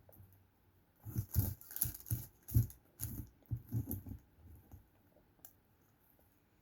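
Close-up eating of a hot and spicy McChicken sandwich: a run of irregular chewing noises starting about a second in and dying away before the end.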